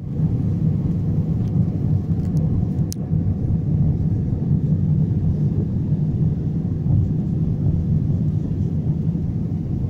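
Steady low rumble of an airliner cabin in flight, engine and airflow noise heard from inside the plane, with a faint click about three seconds in.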